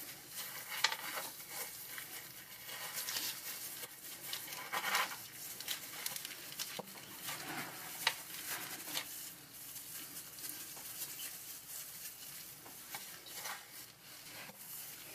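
Faint, irregular small scrapes, taps and rustles of hands working boric acid paste and fine wire wool around a small steel die.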